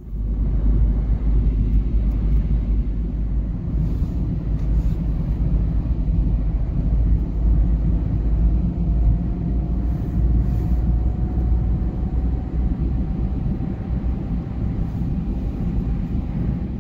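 Car driving along a snow-covered road: a steady low rumble of tyres and engine, with a faint whine that rises slowly in pitch.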